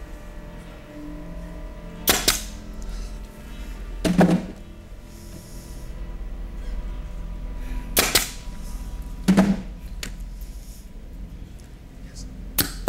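Nail guns dry-fired one after another: three sharp clacks, about 2, 8 and 12.7 seconds in, with a heavier thud a couple of seconds after each of the first two, over low, tense background music.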